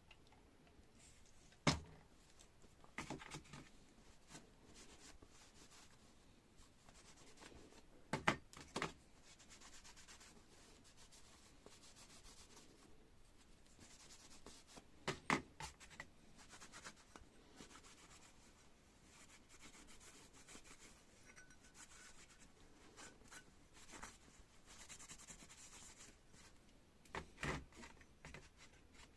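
Quiet hand work on metal parts: faint rubbing with a few short sharp knocks as pieces are picked up and set down, spread out with long gaps between them.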